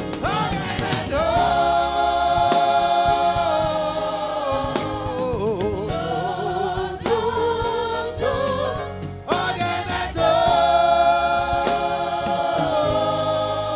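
A choir singing a gospel worship song with a band, holding long notes with vibrato in two phrases, about a second in and again near ten seconds in, over drum hits.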